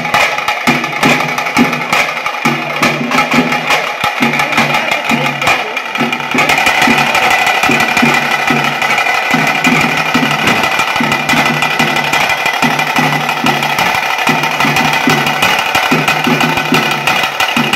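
Tase drums beaten fast with sticks in the driving rhythm that accompanies a pili vesha tiger dance, with a brighter, denser layer joining in about six seconds in.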